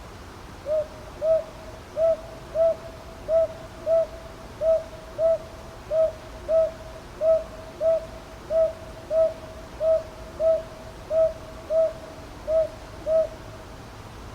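Japanese boobook (northern boobook owl) calling a steady series of low, evenly paced hoots in pairs, "ho-ho, ho-ho", about ten pairs. The calls start about a second in and stop near the end, over a faint steady hiss.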